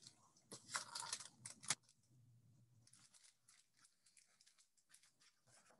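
Faint rustling and a sharp click as a hardcover picture book is handled and its page turned in the first two seconds, then near silence.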